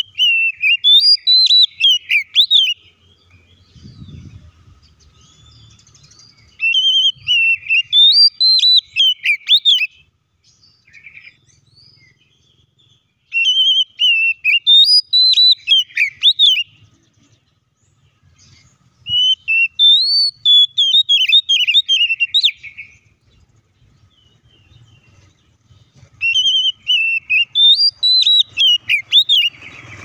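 Oriental magpie-robin singing: five loud, similar phrases of quick varied whistles, each about three seconds long, repeating every six to seven seconds with short pauses between.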